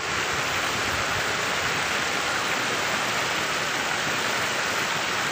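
Steady rush of shallow water running over stones in a small stream.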